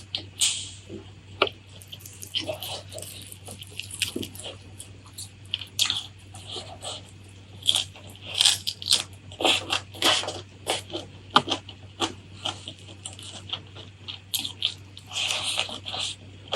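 Close-miked eating sounds: irregular crunching bites and wet chewing of food.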